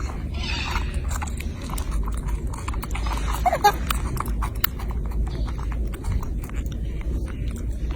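Baby monkey eating: a run of small irregular clicks and smacks from its mouth and food, with one short squeaky call about three and a half seconds in, over a steady low rumble.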